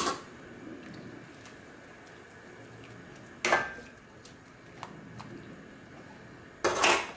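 Wire spider skimmer knocking against a stainless steel pot of boiling water while broccoli is blanched. Three sharp metal clanks about three seconds apart, the last a quick double knock, over a low steady bubbling.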